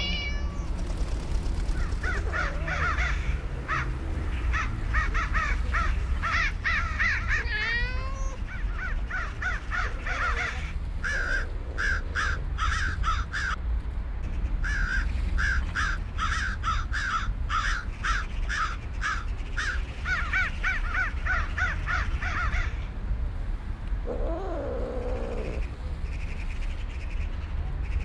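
Crows cawing in long runs of quick, harsh calls over a low, steady rumble of park background noise. Near the end a cat meows once.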